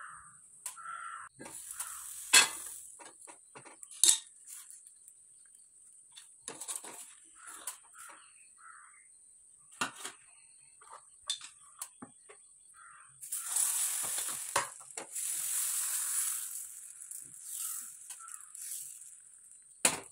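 Knocks and clinks of a non-stick appam pan and its lid being handled, then about 13 seconds in a few seconds of sizzling as wheat appam batter goes into the hot pan.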